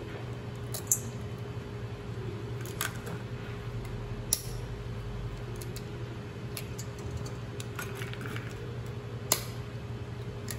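Raw eggs being cracked with a metal spoon over a stainless steel bowl: a few sharp, separate clicks spread over several seconds, over a steady low hum.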